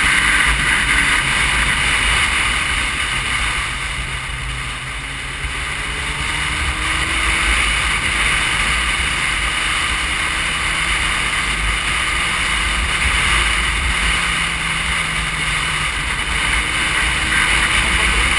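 Wind rushing over the microphone of a camera on a moving motorcycle, with the bike's engine faintly beneath it, its pitch rising and falling as the rider accelerates and eases off. The wind dips briefly a few seconds in.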